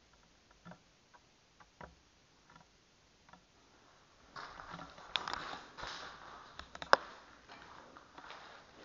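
Footsteps scuffing and crunching over a gritty concrete floor in a small enclosed space. Only a few faint ticks for the first four seconds, then steady scuffing steps with scattered clicks and one sharp click about seven seconds in.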